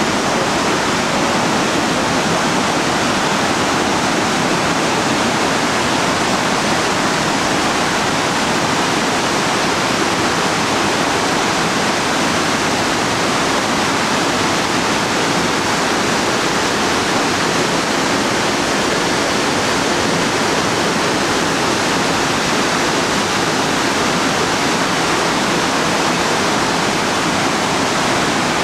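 Montmorency Falls, a very high waterfall, making a loud, steady rush of falling water that holds an even level without a break.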